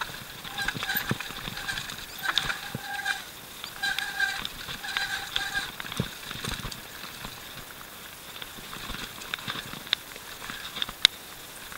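Mountain bike, a Canyon Nerve, running fast down a dirt trail, with rattles and sharp knocks from the bike over the ground. In the first half come four short bursts of a steady squeal, typical of disc brakes squealing as they are applied.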